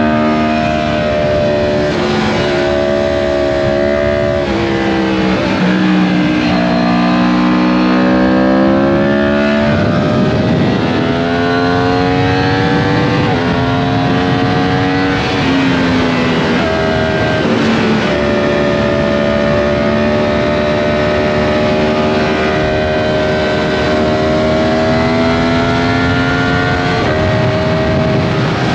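Sport motorcycle's four-cylinder engine pulling hard through the gears at speed, its note climbing and then dropping at each of several gear changes, over wind rush.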